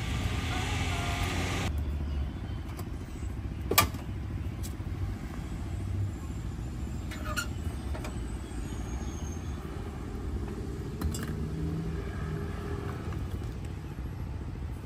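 Steady low rumble of road traffic. Light rustling in the first couple of seconds stops abruptly. A few sharp clicks and clinks of metal coffee gear being handled follow; the loudest is a single click about four seconds in.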